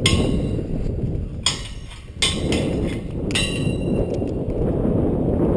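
Metal clanks with a short ringing: steel climbing hardware (carabiners and lanyard hooks) striking the lattice tower's steel tubing. One clank comes at the start, then a cluster follows from about one and a half to three and a half seconds in, over a steady low rumble of wind on the microphone.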